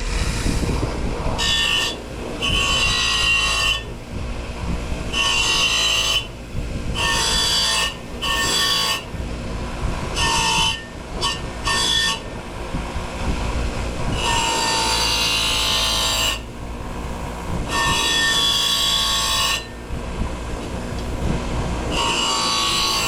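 Compressed-air blow gun hissing with a whistling edge in about ten bursts of one to two seconds each, blowing a freshly washed valve cover dry.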